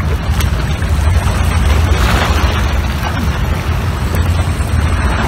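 Sea waves washing against a rocky shore over a steady low rumble, with a louder wash of surf about two seconds in.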